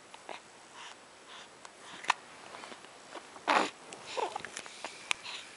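A young baby's small sharp hiccups now and then, with a louder breathy sound and a short falling coo a little past the middle.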